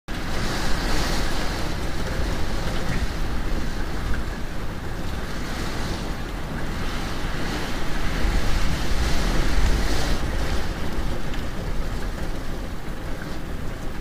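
Steady heavy rain, a dense even hiss with a deep rumble underneath, swelling a little about eight to ten seconds in.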